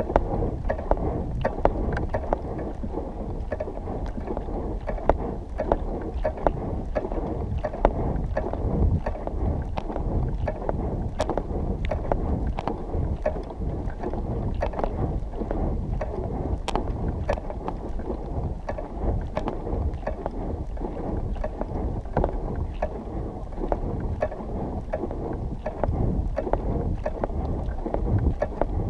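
Wind buffeting the microphone, a steady low rumble, with frequent small clicks and knocks throughout.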